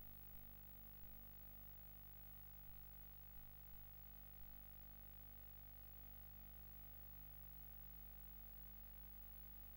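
Near silence: a faint, steady low hum, with a few faint clicks in the first half.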